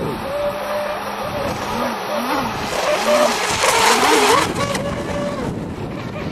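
Radio-controlled model power boats with 26cc two-stroke petrol engines racing, their engine notes rising and falling as they throttle and turn. About four seconds in, one boat passes close and is loudest, with the hiss of its spray.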